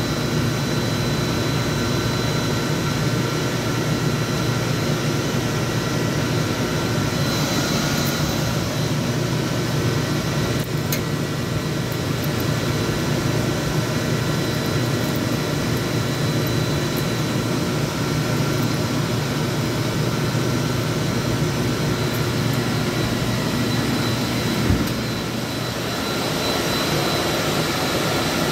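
Steady, loud drone of large motor-driven machinery, with a thin steady whine above it and one short knock about three-quarters of the way through.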